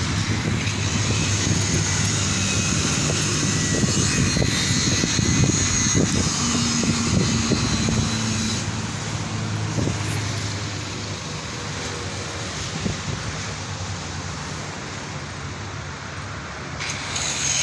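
Steady rumble of road traffic with engine hum, one engine tone rising out of it for a couple of seconds near the middle, then fading slightly.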